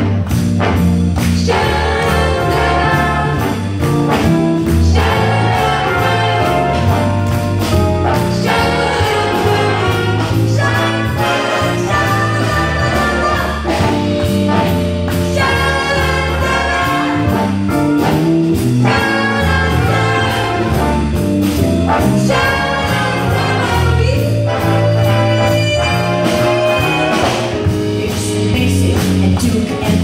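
Live big band playing swing jazz: trumpet, trombone and saxophone sections voicing chords over a steady bass and drum beat.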